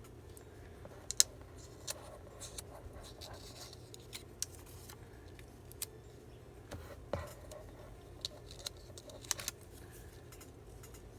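Paper crafting pieces being handled on a work table: scattered light clicks, taps and short rustles at irregular moments, the sharpest about a second in.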